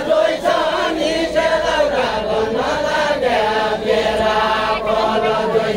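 Group of men chanting a deuda folk song together, unaccompanied, in a slow melody of long sung notes.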